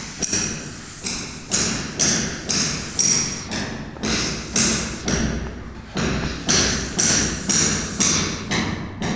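Footsteps scuffing across a bare, gritty concrete floor at walking pace, about two steps a second, with a short pause about five seconds in.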